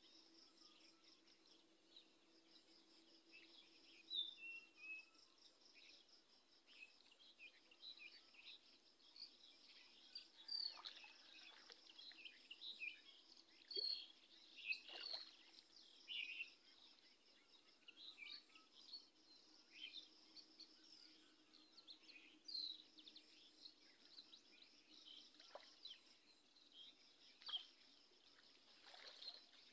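Faint rural ambience: many short chirps from small birds over a steady, pulsing insect trill, with a few light water splashes from wading in the flooded paddy.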